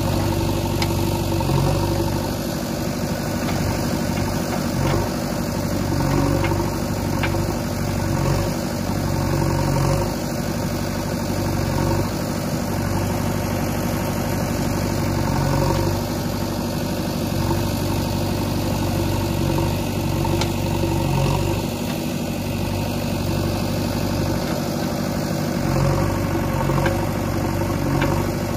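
JCB 3DX backhoe loader's diesel engine running steadily while its backhoe arm digs and dumps soil, the engine note swelling slightly now and then as the hydraulics take load.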